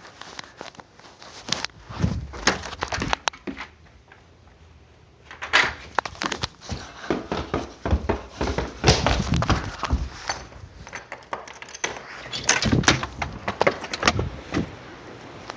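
Footsteps and irregular knocks and clatter, with a quieter stretch about a third of the way in.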